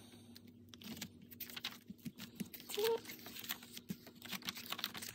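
Paper planner pages and a plastic divider being handled on the metal rings of a pocket ring planner: a scattered run of light taps, clicks and paper rustles.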